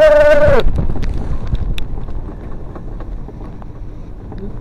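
A voice holding one long high note slides down and stops about half a second in. Then comes wind on the microphone and the low rumble of a roller-coaster car running along its track, with scattered faint clicks.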